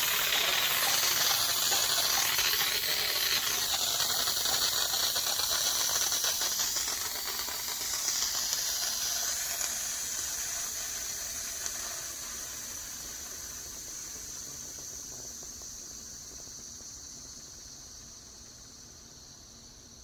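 Steam hissing out of a pressure cooker's release valve as the pressure is let off after cooking rice, loud at first and then dying away steadily through the second half as the pressure falls.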